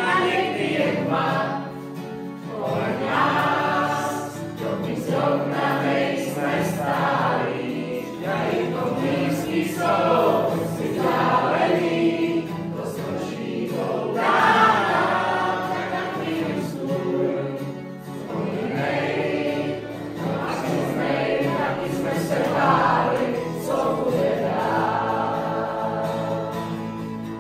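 A group of voices singing a Czech folk-style song in phrases, accompanied by a strummed acoustic guitar.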